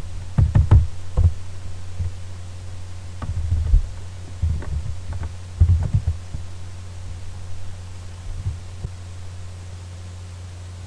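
Laptop keys being typed in short bursts, heard mostly as dull thumps with a few sharper clicks, over a steady low hum.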